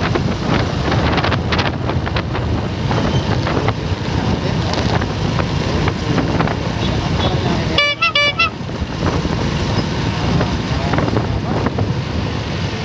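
Motorcycle tricycle riding in traffic, its engine and the road noise running steadily. About eight seconds in, a horn toots in a quick run of short beeps.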